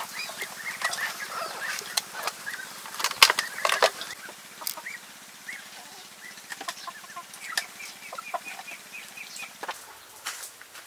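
Domestic chickens clucking, with a quick run of high chirps about eight seconds in. A few sharp clatters break in, the loudest a little over three seconds in.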